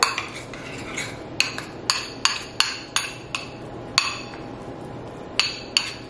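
Metal spoon clinking and scraping against a ceramic bowl while guacamole is stirred: an irregular run of sharp clinks, several a second, with a short pause a little past the middle.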